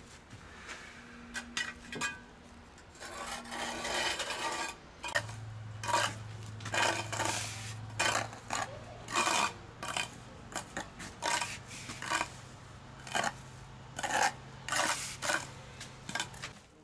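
Hand trowel scraping and smoothing a loose, dry sand-and-cement mortar bed, in a run of short strokes roughly one a second. A steady low hum starts about five seconds in.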